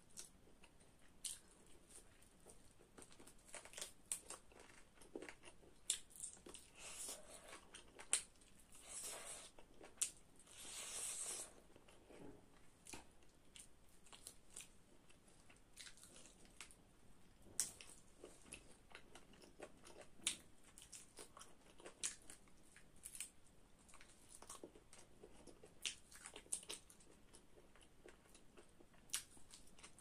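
Close-miked mouth sounds of eating a chicken leg piece: biting and chewing the meat, with many short wet clicks and smacks. There are two longer hissing stretches, about seven seconds in and from about nine to eleven seconds in.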